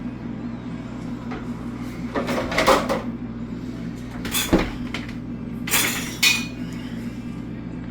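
Kitchen pots, lids and utensils clattering and knocking a few times, about two, four and a half and six seconds in, over a steady low hum.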